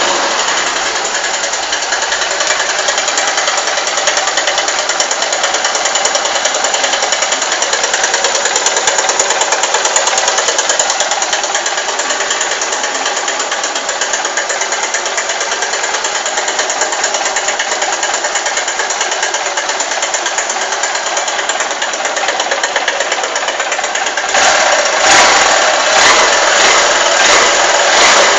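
Honda CG Titan 150 single-cylinder motorcycle engine idling with a fast, steady mechanical ticking, the strange 'tec tec' noise the owner hears on starting and cannot explain. It gets louder near the end.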